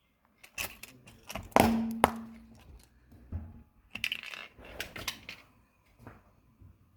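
Objects cracking and crunching as they are crushed under a car tyre. There is a loud crack with a brief ring about one and a half seconds in, a second sharp crack just after it, and a burst of crackling about four seconds in.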